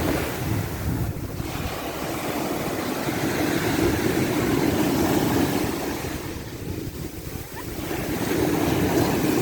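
Ocean surf: waves washing and breaking in two swells, one building about three seconds in and easing off, the next rising near the end, over a low rumble of wind on the microphone.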